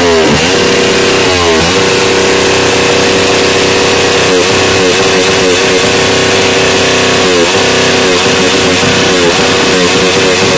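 Suzuki Raider 150 single-cylinder four-stroke engine free-revving on a paddock stand: it holds a steady fast idle between quick throttle blips, one near the start, a cluster about four seconds in and another run from about seven seconds in.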